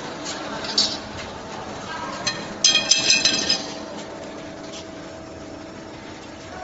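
A freshly butt-welded flat metal ring dropped onto a concrete floor, clanging and bouncing several times with a ringing metallic tone for about a second, midway through. A couple of sharp clicks come before it, over a steady low hum.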